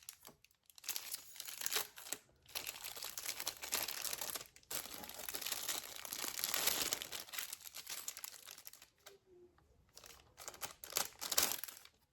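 Packaging crinkling and rustling as it is handled and unwrapped, in uneven stretches broken by short pauses.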